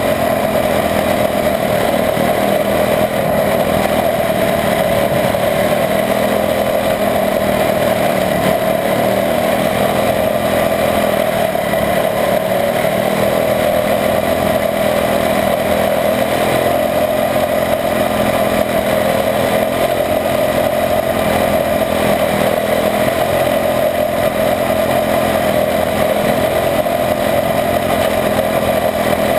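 Quarter midget race car's Honda single-cylinder four-stroke engine running at high revs, heard close up from the car itself. The engine note holds nearly steady, with small rises and dips as the car laps the short oval.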